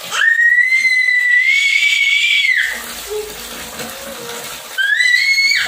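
A toddler's high-pitched squeal, held for about two and a half seconds, then a shorter rising squeal near the end, over tap water pouring into a plastic tub of toy trucks.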